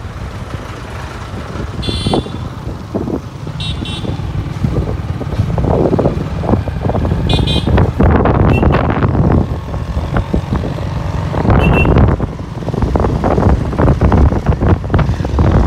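Motorcycle riding noise: engine and road rumble with wind buffeting the microphone. Several short high-pitched vehicle horn toots sound about 2, 4, 7 and 12 seconds in.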